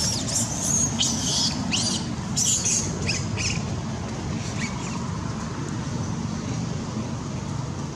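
Young long-tailed macaque crying with a quick run of short, high-pitched squeals through the first three seconds or so, then falling quiet. A steady low hum runs underneath.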